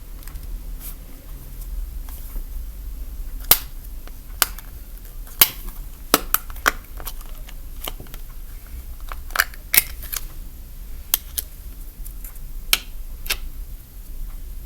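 Old, stiffened slime being worked by hand, giving irregular sharp pops and clicks, more than a dozen, over a low steady hum.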